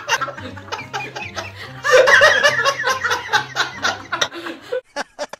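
A group of people laughing hard together, loudest about two seconds in and breaking into short bursts near the end.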